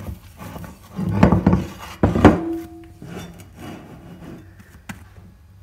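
Risen yeast dough being handled and turned out of a glass bowl onto a marble counter: two dull thumps about one and two seconds in, the second followed by a short ring from the glass bowl, then softer rubbing and handling with one click near the end.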